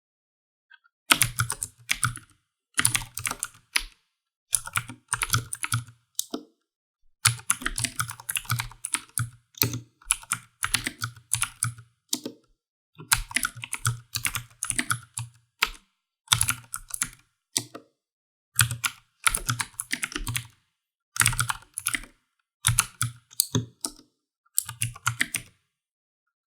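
Typing on a computer keyboard: bursts of rapid keystrokes a second or two long, broken by short pauses. It starts about a second in.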